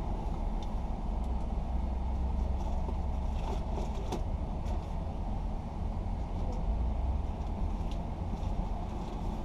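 A vehicle engine idling, a steady low rumble. A few light clicks come about three and a half to four seconds in.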